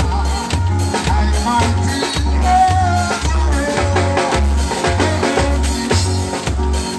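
Live band playing upbeat music through a sound system: drum kit, a bass line pulsing about twice a second, and a melody line over the top.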